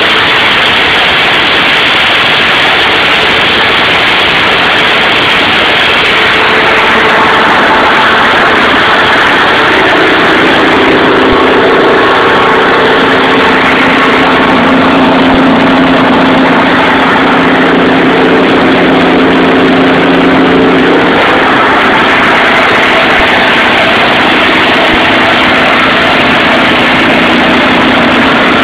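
Perkins 6354 turbocharged six-cylinder diesel engine running steadily on a generator set. Its hum shifts in tone from about ten seconds in, then settles back about ten seconds later.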